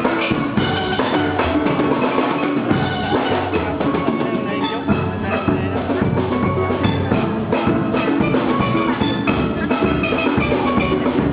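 Steel band playing live: steelpans carrying the melody over a drum kit. A low bass line comes in about a quarter of the way through.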